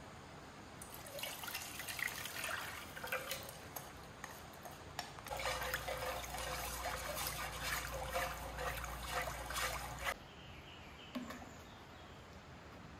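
Water running steadily for about five seconds, starting and cutting off suddenly, after a few seconds of lighter, uneven trickling with small knocks.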